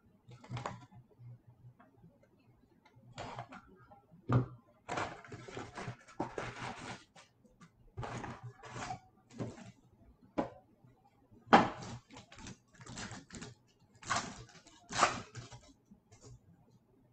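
Hands opening a cardboard box of trading cards and pulling out and handling the foil packs: irregular rustling, crinkling and scraping, with a few sharper knocks and clicks.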